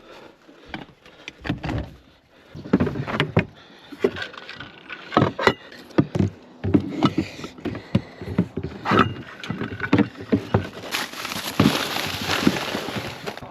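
Irregular knocks, clunks and rattles, with a steady hiss over roughly the last two and a half seconds.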